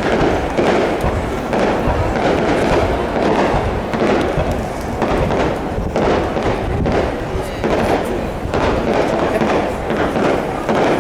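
Aerial fireworks bursting in quick succession, a bang about every second, over a steady wash of noise.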